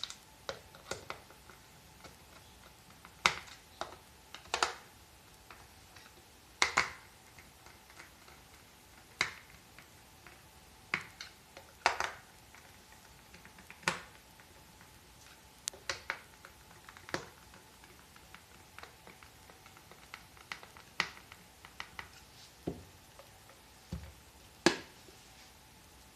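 Irregular sharp clicks and taps of small hard parts being handled, one every second or two and uneven in loudness, over a faint steady hum.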